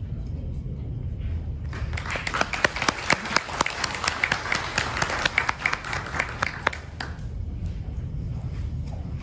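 Audience applauding, starting a couple of seconds in and dying away about two seconds before the end, over a low steady rumble.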